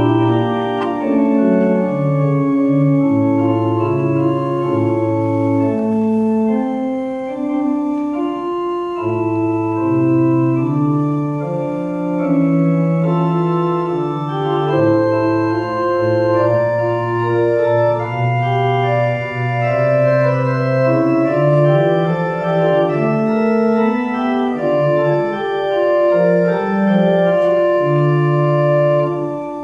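Church organ playing a slow prelude of held chords over a bass line that moves in long, sustained notes.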